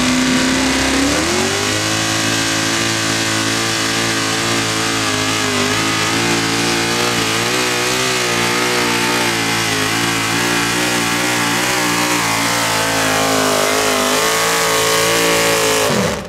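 Hot rod pulling tractor's engine at full throttle on a pull: the pitch climbs about a second in, holds high with a slight waver for most of the run, then falls sharply as the throttle is chopped near the end.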